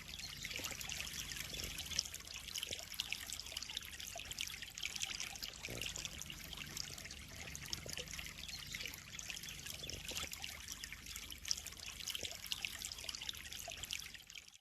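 Water trickling and splashing steadily into a koi pond, a continuous bubbly patter that fades out at the very end.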